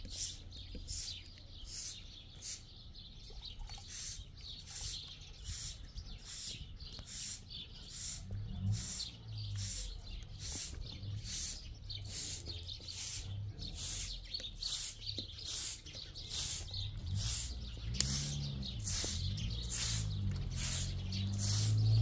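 Bird chirping steadily, a short high-pitched chirp repeated about twice a second. A low rumble comes in partway through and is loudest near the end.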